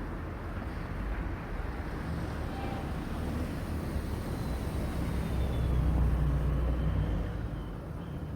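A motor vehicle passing by on the road, its low engine rumble swelling to a peak about six seconds in and then fading, over steady traffic and wind noise.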